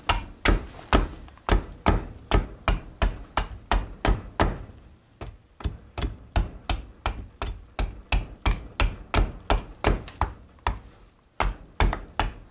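Hand axe chopping a green black walnut ladle blank against a wooden chopping block: quick, rhythmic strikes, about two to three a second, with a short break near the end.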